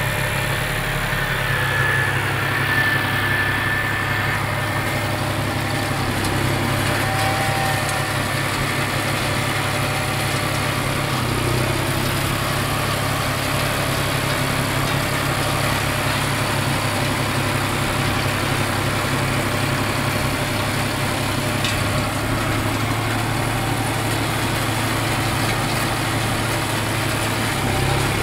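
Tractor engine running at a steady speed while pulling a spring-tine cultivator through the soil: a constant low drone that holds the same pitch throughout.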